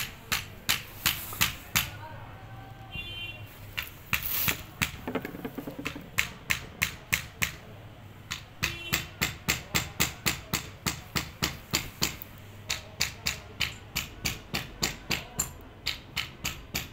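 A long run of sharp knocks, like hammer blows, mostly about three a second with a few short pauses.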